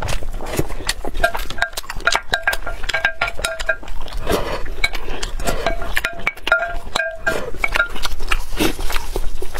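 Wooden spoon scraping and clinking against a glass bowl while scooping rice grains from broth, with short repeated squeaks, amid close-miked mouth and eating sounds.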